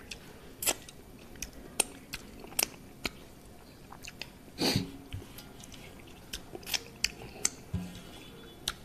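Close-miked chewing of rice and curry eaten by hand: a run of short, wet mouth smacks and clicks, with one longer, louder mouth sound a little past halfway.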